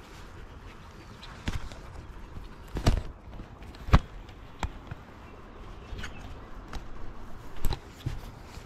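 Handling noise from a baitcasting rod and reel worked in the hands close to the microphone: a series of irregular knocks and clicks, the loudest about three and four seconds in and again near the end.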